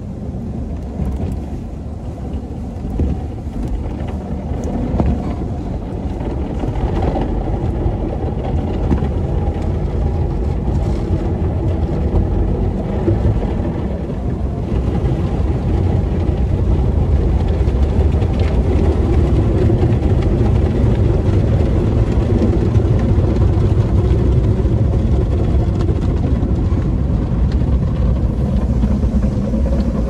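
Automatic tunnel car wash heard from inside the car's cabin: water spray and cloth brushes washing over the windshield, over a steady low rumble of the wash machinery that grows louder about halfway through.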